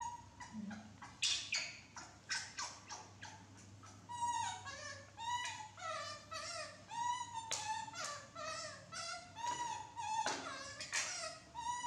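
Baby macaques calling: short sharp squeaks at first, then from about four seconds in a steady string of short, high-pitched arched coos, several voices overlapping at different pitches.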